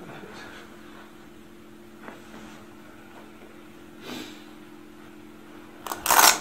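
Steady low electrical hum, with a faint click about two seconds in and a loud sudden burst of noise, about half a second long, near the end.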